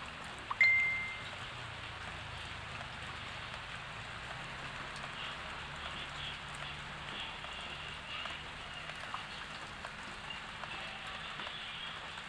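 Steady rain falling on leaves and the garden, an even hiss. About half a second in, a single bright high ding rings out and fades away over about a second.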